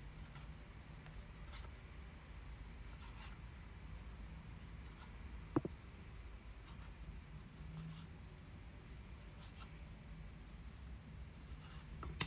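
A kitchen knife slicing through a rolled stack of thin yufka dough sheets on a wooden cutting board: faint, irregular papery cutting strokes, with one sharper tap about halfway through.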